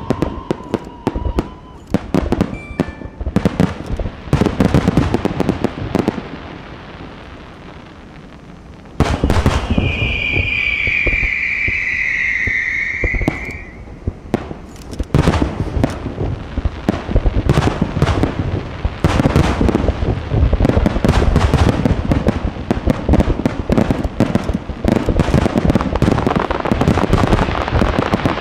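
Aerial fireworks display: shells bursting in rapid, overlapping bangs and crackle. The bangs thin out for a few seconds, then a high shrill whistle holds for about four seconds. A dense, continuous barrage of bursts follows.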